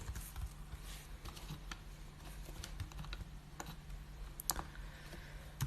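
Faint, scattered clicks of a computer keyboard, a few sharper presses near the end, over a low steady hum.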